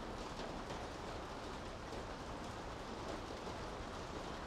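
Steady rain falling on city streets: an even hiss of rain with small drops spattering through it.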